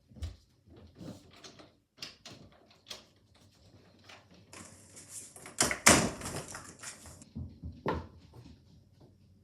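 Door being handled and opened or shut, with a series of knocks and rattles and one loud bang about six seconds in.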